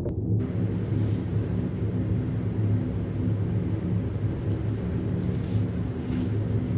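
Steady low rumbling drone from a sci-fi film soundtrack, with a hiss above it that comes in suddenly about a third of a second in.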